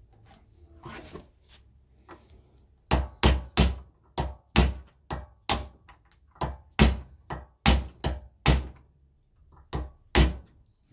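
Sharp hammer-like blows on a WW2 German bayonet and its scabbard, struck to work the rust-seized blade loose. After a few faint clicks, about fifteen hard knocks come at roughly two a second from about three seconds in.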